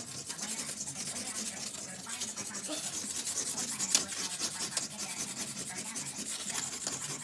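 Pumice scouring stick scrubbing rapidly back and forth on a glass-ceramic electric stovetop, a continuous scraping made of quick repeated strokes as it grinds off burnt-on carbon build-up. A single sharp click comes about four seconds in.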